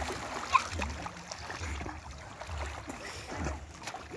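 Water splashing and sloshing as children swim and kick in shallow water, with a few sharper splashes.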